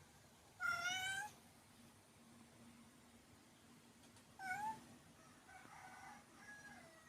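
Mother cat meowing to call her kittens: a long, loud meow about half a second in, a shorter one at about four and a half seconds, then several fainter mews near the end.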